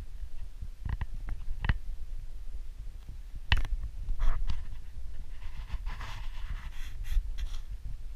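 Handling noise from a camera held right against a hand: a low rumble on the microphone, a few sharp clicks, and a scratchy rustle of skin rubbing near the lens about two thirds of the way through.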